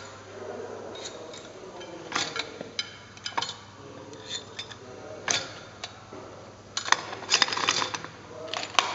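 Wire spokes clicking and clinking against the polished light-alloy rim and hub as the outer spokes of a Borrani wire wheel are fitted by hand. Scattered metallic ticks, with a quick run of rattling clinks about seven seconds in.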